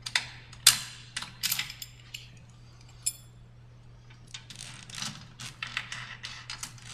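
Sharp metallic clicks and rattles of a stepper's steel step chain and drive parts being handled, in two bursts: one in the first second and a half, another from about four to six and a half seconds in. A faint steady low hum runs underneath.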